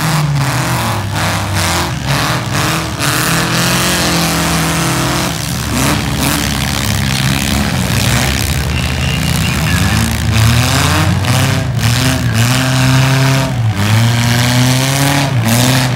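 Several four-cylinder demolition-derby cars running hard, their engine notes rising and falling and overlapping as they rev.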